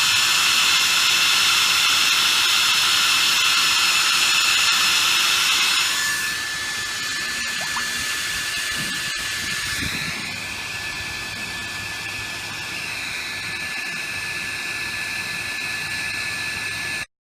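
Electric hot-air blower running steadily to heat an LM35 temperature sensor, a loud whine and rush of air. About six seconds in it drops in level and changes pitch, and it cuts off abruptly near the end.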